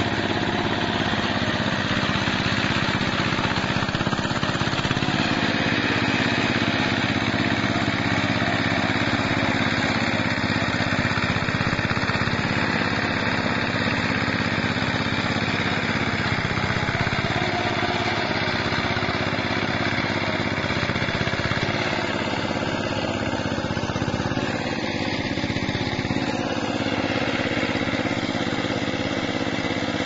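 Small engine of a remote-control hand tractor running steadily under load as the tractor works through a flooded rice paddy.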